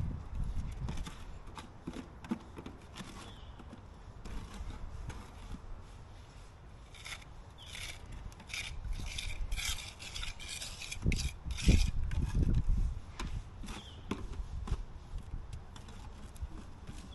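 Irregular scraping and rubbing strokes from hand repair work on roofing material, with a couple of louder dull knocks around eleven to twelve seconds in.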